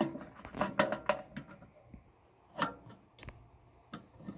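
Scattered clicks and knocks of a Nylint toy truck trailer being handled and worked with the fingers, a cluster in the first second and a few more later, as a bent part is coaxed back straight.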